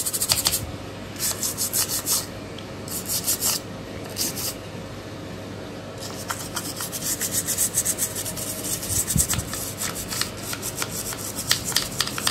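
A small brush scrubbed back and forth over a Samsung LED TV's main circuit board: fast, scratchy rubbing in short bouts at first, then steady brushing from about halfway on. The brushing clears dust off the board, which the technician blames for the set's memory-loss and self-changing faults.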